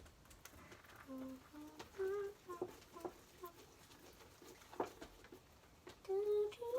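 A girl humming in short broken notes, with scattered sticky clicks and squelches from homemade slime being worked by hand in a bowl. The humming stops for a few seconds in the middle and picks up again near the end.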